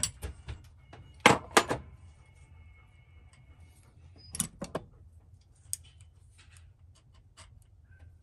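Metal clinks and knocks from handling a Yamaha YSR50 front fork tube and a hand tool: a few sharp taps spread out, the loudest pair about a second and a half in, followed by a faint ringing.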